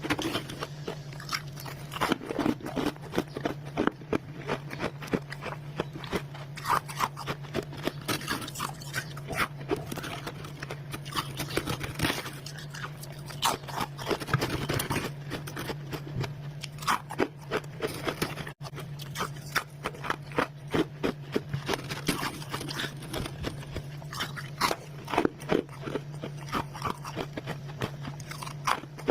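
Someone chewing mouthfuls of crunchy freezer frost: a dense, irregular run of crisp crunches, over a steady low hum.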